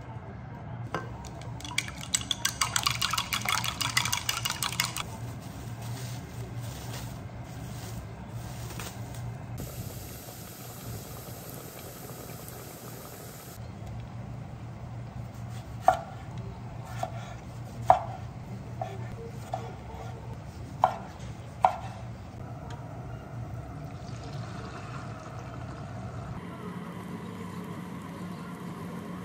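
Chopsticks beating eggs in a glass jug, a loud rapid clicking for about three seconds, then a cleaver chopping a tomato on a wooden cutting board in about seven sharp knocks. Near the end there is a faint sizzle of egg frying in a pan, over a steady low hum.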